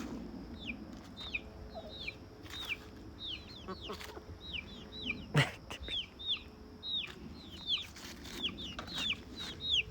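Chicks peeping over and over: short high peeps that fall in pitch, a few every second. A single sharp knock comes about five and a half seconds in.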